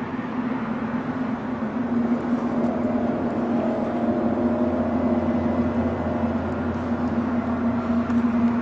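A steady, droning hum with a held low tone and fainter higher tones over it, the kind of unexplained 'strange sound from the sky' reported worldwide; a deeper layer swells in about halfway through.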